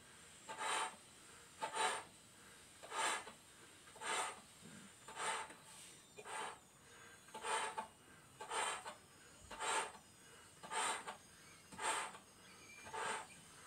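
A person blowing up a clear latex balloon by mouth: loud rushing breaths come in a steady rhythm of about one a second.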